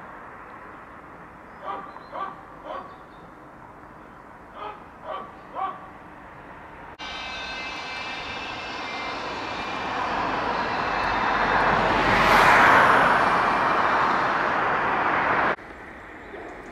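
A dog barking in quick runs of three, twice. About seven seconds in, a loud rushing engine noise starts suddenly, swells to a peak near twelve seconds and cuts off abruptly near the end.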